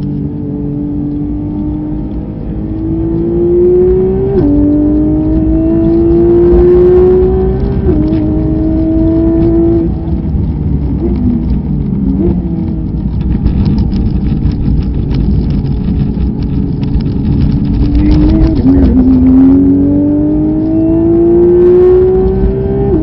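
A race car's engine heard from inside the cabin, pulling hard through the gears: the pitch climbs and drops at quick upshifts about four and eight seconds in, then falls away under braking with short downshift blips. It holds steady through a corner, then climbs again near the end. Steady road and wind noise runs underneath.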